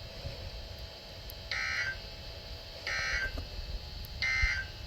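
Three short data bursts of the EAS/SAME end-of-message code from a NOAA Weather Radio broadcast, each about a third of a second long and about 1.3 seconds apart, marking the end of the alert.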